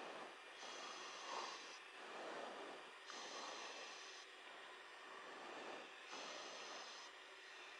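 Faint rushing breath noise over an aircraft intercom microphone, swelling and fading about every one to two seconds.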